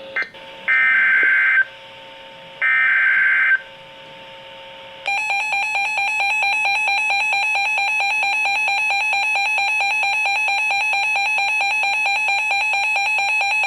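Emergency Alert System SAME header: two screechy digital data bursts about a second long, a second apart. Then, about five seconds in, the long steady attention tone of the alert starts, announcing a new warning.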